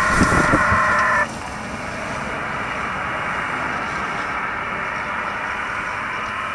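HF APRS packet data tones, a warbling two-tone burst, playing from a military HF transceiver's speaker and stopping abruptly about a second in. The receiver's band noise then hisses steadily.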